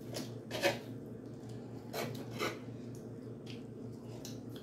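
Knife and fork cutting steak on a metal griddle pan: a few short scrapes of cutlery, the loudest about half a second in and two more around two seconds in, with light clicks near the end, over a steady low hum.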